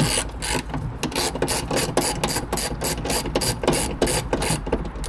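Hand ratchet with a 10 mm socket clicking rapidly as it turns a bolt, a quick run of several clicks a second.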